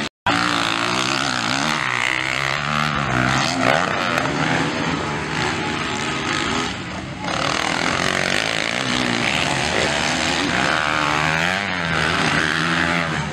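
Motocross bike engines revving, the pitch rising and falling again and again as the bikes accelerate and back off around the dirt track. The sound drops out for a moment just after the start.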